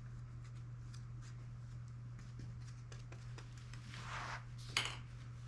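Small handling sounds at a workbench during gluing: faint scattered taps and ticks, a short rustle about four seconds in, then one sharp click. A steady low hum runs underneath.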